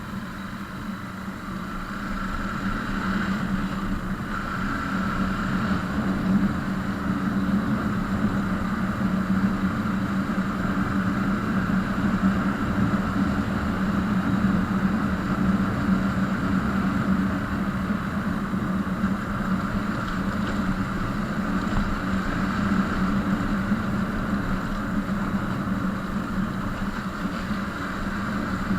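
Motorcycle engine running at a steady speed with road noise, growing louder over the first few seconds and then holding even.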